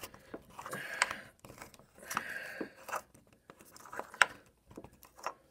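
Cut aluminum bottle pieces being pushed and worked together by hand: scraping and crinkling of thin metal with scattered small clicks.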